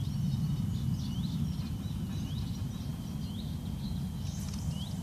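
Low, steady outdoor rumble, like wind on the microphone, with small birds chirping and twittering throughout and a brief brighter hiss about four seconds in.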